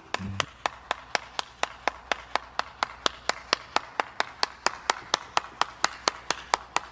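A steady run of sharp, evenly spaced clicks, about four a second.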